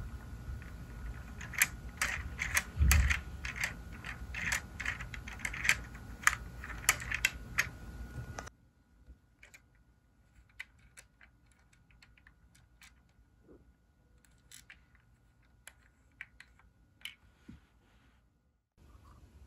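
Plastic clicks and light rattles of a Lego garbage truck being handled and its parts moved by hand, dense for the first eight seconds or so, then sparse and faint after a sudden drop in level.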